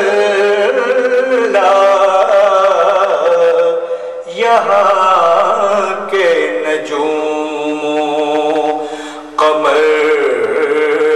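A voice singing an Urdu devotional hymn in long, drawn-out, ornamented phrases, with short breaks about four seconds in and near nine and a half seconds.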